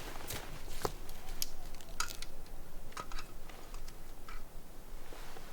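Scattered small clicks, taps and rustles of camping gear being handled, with a few brief crunching sounds.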